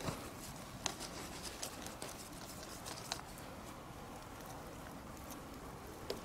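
Faint rustling with a few light clicks as a hand strokes a tortoiseshell cat's fur, the sleeve and leaf litter brushing against it.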